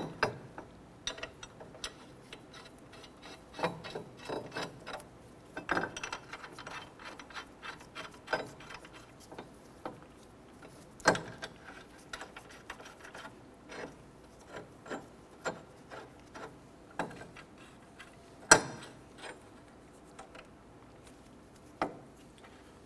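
Hand ratchet clicking in short uneven runs while the wheel hub puller tool is bolted onto the hub, with a few louder metal clanks.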